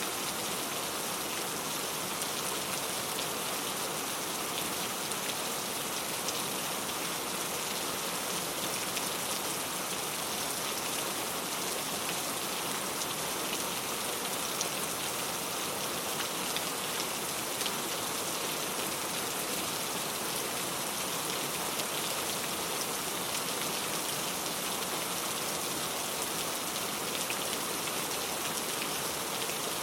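Steady rain falling, a dense even hiss of raindrops with many small pattering drop impacts.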